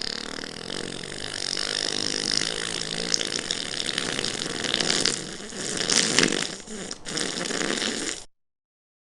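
Wet fart sounds in a long continuous run, louder in a couple of spurts past the middle, cutting off suddenly near the end.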